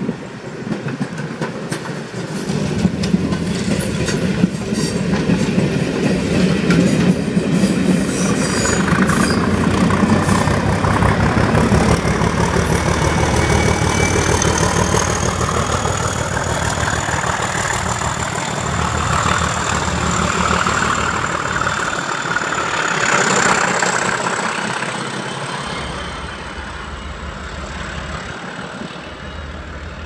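Class 37 diesel locomotive's English Electric V12 engine working hard as the train pulls away, with wheels clicking over rail joints for the first several seconds. A thin high whine rises slightly through the middle, and the sound fades near the end as the train draws away.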